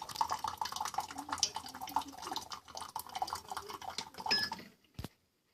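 Hot water from a water purifier's dispenser pouring and splashing into a cup, stopping abruptly near the end, followed by a single click.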